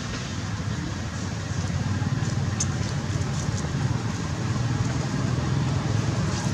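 Steady low rumble of an engine running in the background, a little louder from about a second and a half in.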